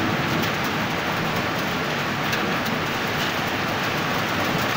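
Heavy rain mixed with hail, a steady hiss with scattered sharp ticks of hailstones striking hard surfaces.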